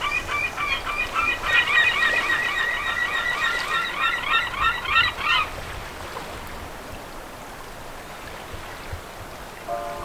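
A bird calling in a fast run of repeated pitched calls for about five seconds, then stopping abruptly, leaving only a faint steady background.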